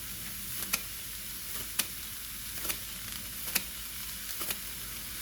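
Rice and vegetables frying in a pan with a steady sizzle, and sharp clicks about once a second as a hand cutter snips green onions into the pan.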